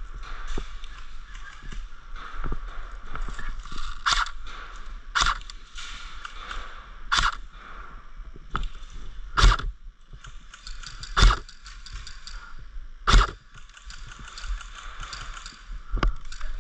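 Airsoft guns firing single shots: about six sharp pops, one to two seconds apart, over a continuous rustling of movement.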